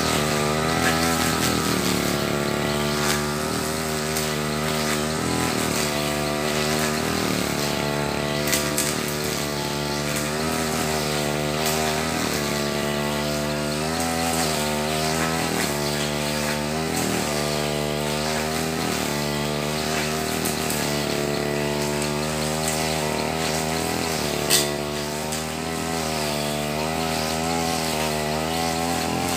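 Backpack brush cutter's small petrol engine running hard while it cuts thick grass, its note dipping and recovering about once a second as the blade swings through the grass. A sharp click stands out about two-thirds of the way through.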